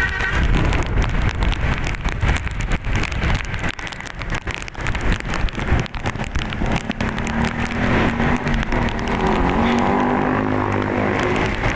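Bus on the road: engine and road noise, with a steadier pitched sound setting in about seven seconds in.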